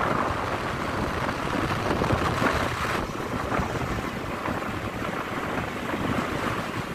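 Steady rushing wind noise on the microphone mixed with road noise from a moving vehicle.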